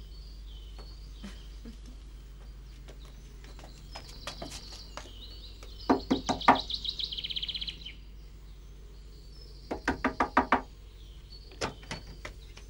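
Knocking on a wooden front door: two bouts of quick raps, one about six seconds in and another about ten seconds in. Birds chirp in the background.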